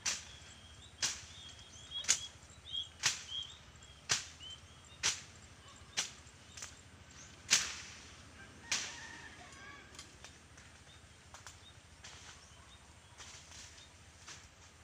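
A blade slashing through weeds and grass in sharp swishing strokes, about one a second. The strokes thin out and stop after about nine seconds.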